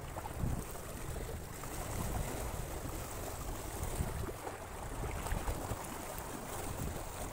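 Wind buffeting the microphone: a steady rumbling hiss with no distinct events.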